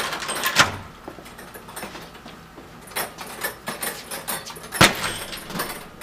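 A door secured with a strike plate lock being hit by a swung 90-pound bag: two heavy thuds, about half a second in and near the five-second mark, with the door and its metal hardware rattling and clicking in between.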